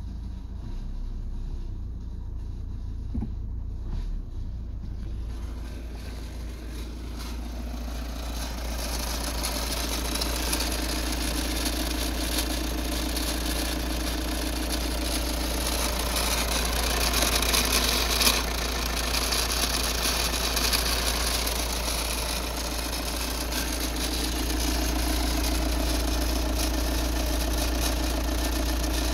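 VW Tiguan's 2.0 TDI CFFB common-rail diesel idling steadily at about 1000 rpm. It is duller at first, then louder and brighter from about seven seconds in, heard over the open engine bay.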